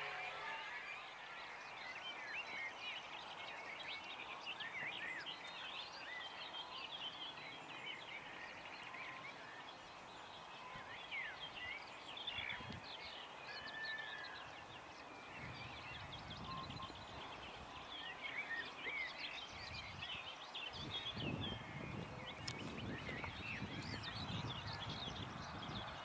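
A chorus of several songbirds singing at once, a busy mix of short chirps and warbles over a steady outdoor hiss. From about halfway through, wind buffets the microphone in low gusts.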